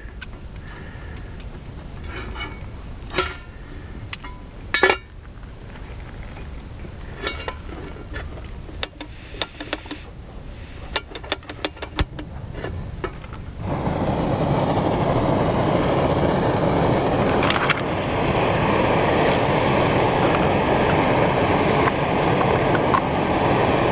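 Metal clinks and taps as a camp stove is readjusted, then about fourteen seconds in the stove's burner comes on and runs with a steady hiss.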